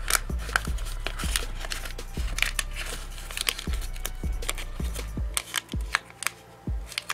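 Glue stick rubbed over origami paper while the paper is handled, giving short rustles and taps, over background music with a steady beat.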